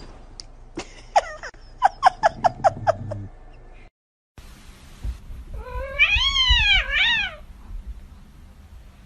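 Cats meowing: a quick run of about seven short mews in the first few seconds, then, after a cut, one long loud meow that rises and falls in pitch, with a shorter meow right after it.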